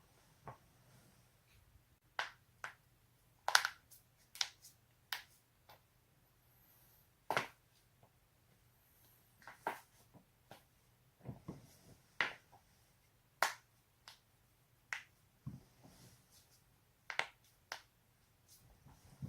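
A person's joints cracking: a series of sharp pops, about twenty spaced irregularly with some coming in quick pairs.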